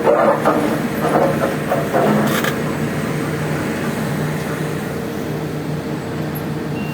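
Excavator's diesel engine running steadily, with a few clanks and knocks from the machine working in the first couple of seconds.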